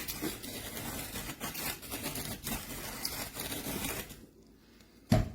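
Manual conical-burr coffee grinder being cranked, a steady gritty crunching and scraping of beans being ground, which stops about four seconds in. A single sharp knock follows near the end.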